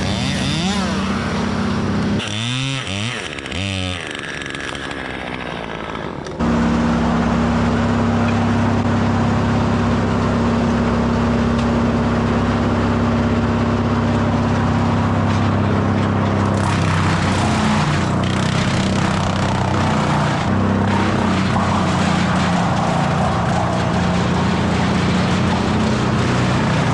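Small engine running steadily. Its pitch swings quickly up and down between about two and six seconds, then it jumps abruptly louder and settles into a steady drone.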